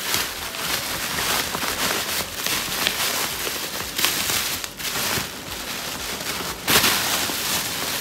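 Bubble wrap and plastic packaging crinkling and rustling as hands unwrap a box, louder about four seconds in and again near seven seconds.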